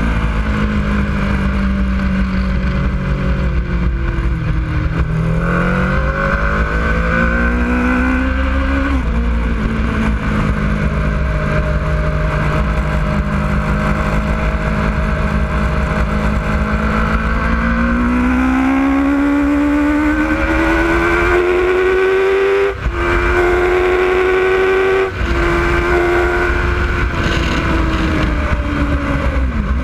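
Sport motorcycle engine heard from onboard at race pace, with wind rumble on the microphone. The engine note falls and rises through the opening corners with a gear change about nine seconds in, holds steady through a long bend, then climbs hard under acceleration with two quick upshifts, each a brief cut in the sound, before easing off near the end.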